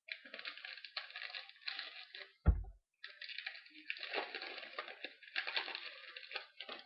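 Crinkling and tearing of a trading-card pack's foil wrapper as it is opened and the cards are handled, with one sharp thump about two and a half seconds in.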